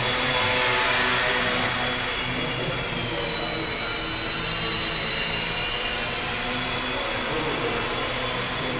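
Small electric indoor model airplanes flying, their motors and propellers giving a high, steady whine that dips slightly in pitch about three seconds in and comes back up near the end, over a steady hiss.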